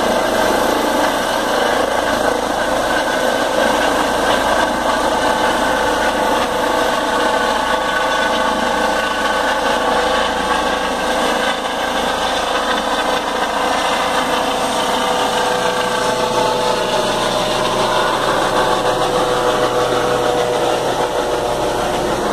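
Air ambulance helicopter in flight overhead, its turbine engine and rotor running steadily, with the whine's pitch bending slightly in the last few seconds.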